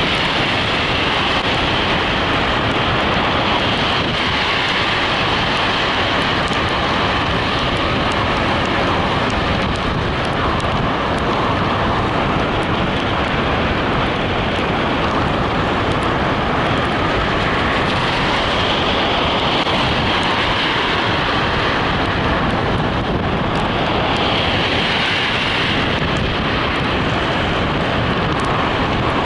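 Steady rush of wind and road noise from a moving vehicle.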